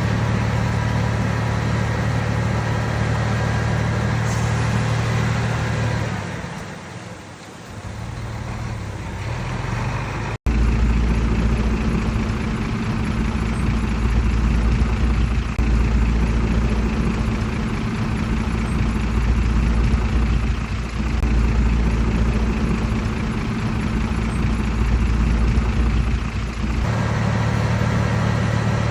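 Heavy diesel engine of earthmoving machinery running steadily. It dips quieter about six seconds in, then cuts abruptly about ten seconds in to a deeper, louder engine sound, which switches back to the first sound near the end.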